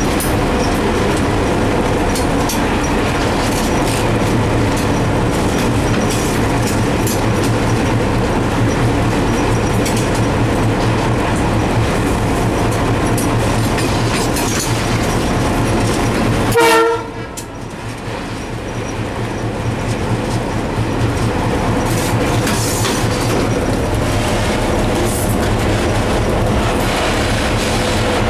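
Diesel locomotive running along the track, heard from its cab: a steady, loud rumble of engine and wheels with clickety-clack of rail joints. About two-thirds of the way through comes a brief horn note, and right after it the noise dips sharply, then builds back over a few seconds.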